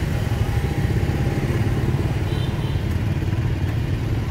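Motorbike engines running close by in street traffic, a steady low rumble.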